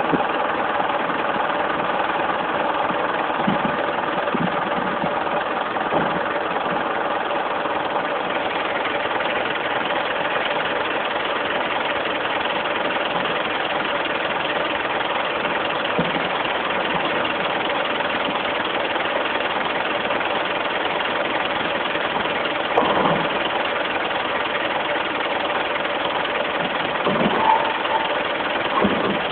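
Refrigerated box truck running steadily at idle, a constant engine drone. Two short knocks stand out near the end.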